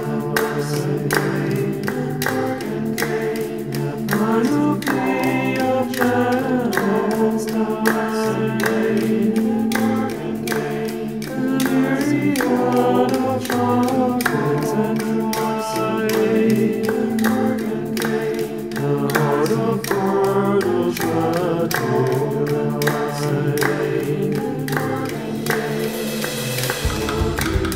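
Song with layered, choir-like sung vocals over a steady beat.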